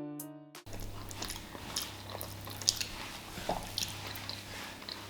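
Keyboard music cuts off abruptly about half a second in. After it comes close-up eating: a person chewing, with small clicks and soft crunches, over a low steady hum.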